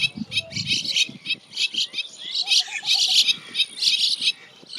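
Bank mynas chirping: a rapid, continuous run of short high chirps and squeaky notes, louder in clusters around the middle.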